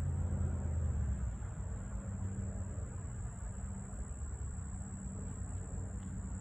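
Outdoor ambience: a low steady rumble that eases a little after about a second, with a thin, high, steady drone above it.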